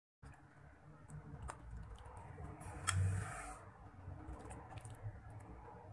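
Metal spoon clicking and scraping against a glass bowl while scooping jelly-and-custard trifle, with scattered light ticks and one louder scrape about three seconds in.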